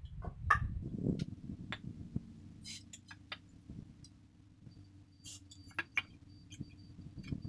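Wooden branch poles knocking and clicking against each other as they are handled and lashed together with nylon rope. The knocks are scattered and irregular, with sharper ones about half a second in and about six seconds in.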